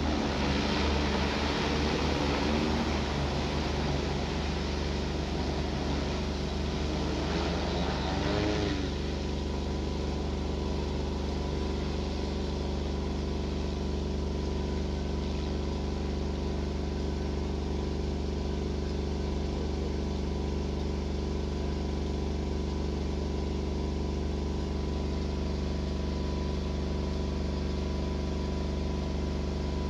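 Multirotor agricultural spray drone's propellers humming. For the first nine seconds or so the pitch wavers up and down, then the sound settles into a steadier, duller hum.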